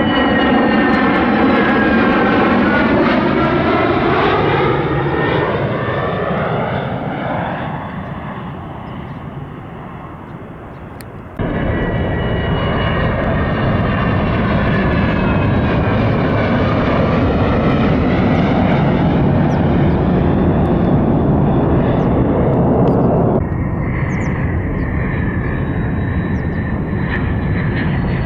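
F-35A fighter's F135 turbofan passing by, its whine sliding down in pitch as it goes past and fades away. About eleven seconds in the sound jumps abruptly to a loud, steady jet rumble, which changes again suddenly about twenty-three seconds in.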